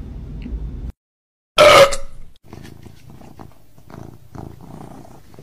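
Cat sounds: one short, loud yowl about a second and a half in, with quieter low sounds before and after it.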